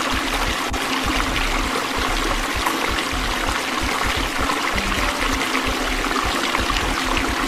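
Water pouring and splashing into a tank: a steady, even rush that begins suddenly.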